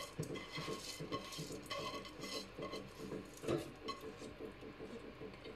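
Soaked basmati rice tipped and scraped out of a metal bowl into a steel pot of water: an irregular run of light clinks and scrapes of grains and metal against metal.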